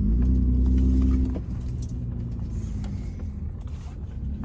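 Car engine heard from inside the cabin while driving, pulling harder for about the first second and a half, then settling to a quieter steady cruise, with keys jangling.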